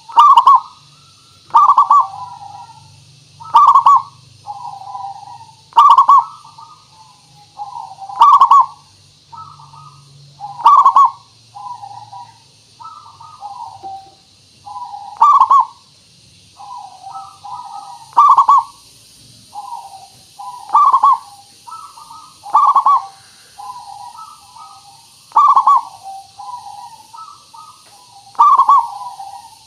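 Zebra dove (perkutut) singing its cooing song. Groups of soft notes alternate with a loud accented coo that comes every two to three seconds.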